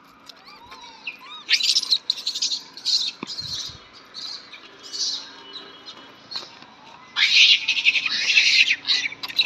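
Rhesus macaques screeching in repeated harsh, high-pitched squeals, with a dense, loud run of calls near the end, as monkeys squabble and chase over scattered food.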